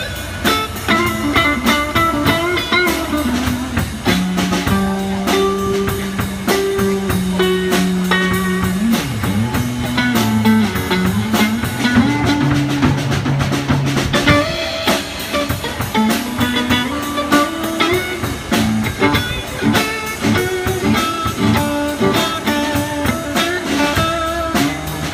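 Guitar and drum kit playing a blues jam: a guitar line moving through sustained and bent notes over a steady drum beat.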